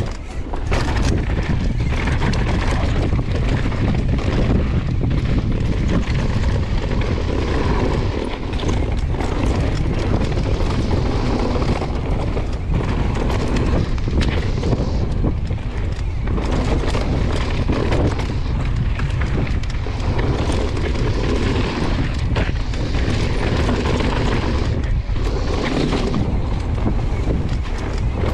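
Downhill mountain bike ridden at speed: wind rushing over the camera's microphone, tyres on the dirt trail, and the bike clattering and rattling over bumps.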